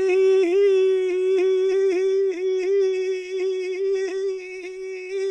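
A man's voice holding one long, steady, fairly high note into a close handheld microphone, wordless, with a slight regular flutter.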